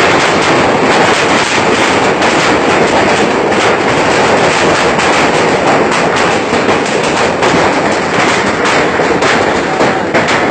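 Heavy hailstorm: a loud, dense clatter of countless hailstones striking roofs and the ground.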